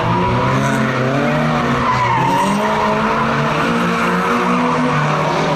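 Two cars' engines revving hard while their tyres squeal and skid as they slide around cones on tarmac. The engine notes rise and fall throughout, over a wavering tyre squeal.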